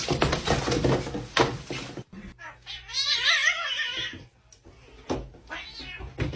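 A cat meowing once, a drawn-out yowl of about a second and a half near the middle, with some knocking and rustling before it and a few clicks after.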